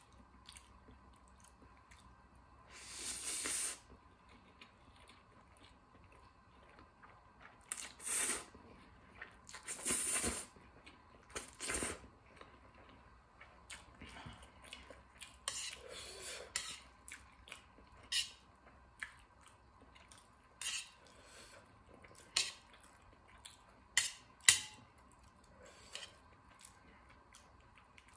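Close-up eating of spicy stir-fried instant noodles: several longer noisy slurps of noodles in the first half, then many short clicks and taps of chopsticks against a stainless steel plate, the sharpest a little before the end.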